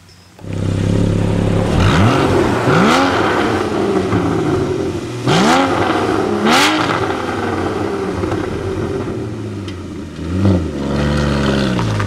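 Porsche Cayman GT4's 3.8-litre flat-six starting up about half a second in and settling to idle, with four quick throttle blips, then pulling away near the end.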